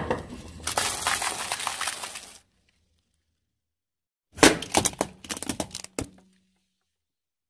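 A car tyre rolls over a row of crisp, hollow fried dough puffs, crushing them with dense crackling and crunching for about two seconds. After a silent gap, a quick run of sharp cracks and snaps comes as the tyre crushes another brittle object.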